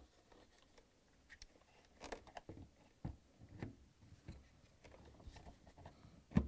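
Faint clicks and knocks of hard plastic parts being handled as a drain pump is fitted into a dishwasher's sump housing, with a sharper knock near the end.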